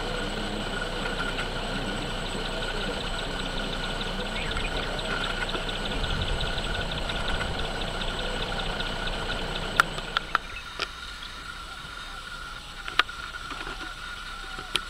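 A steady low engine rumble, like a vehicle idling, under a constant high insect drone with a fast pulsing chirp. About ten seconds in the rumble drops away, leaving the insect drone, a few sharp clicks and faint short calls.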